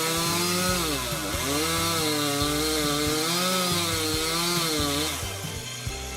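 Chainsaw cutting through wood, its engine note sagging and recovering again and again as the chain loads up in the cut. The sound drops away about five seconds in.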